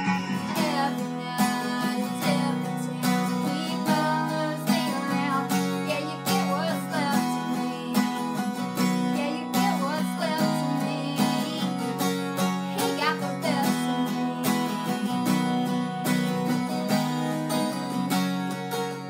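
A woman singing a country song while strumming an acoustic guitar in a steady rhythm.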